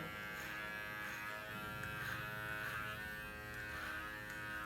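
Cordless electric hair clipper with a modified motor running steadily, a continuous even buzz.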